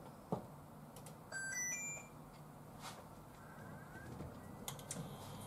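Induction cooktop's control panel answering a button press with a click and then a short run of electronic beeps stepping up in pitch, the cooktop's signal that heating has started.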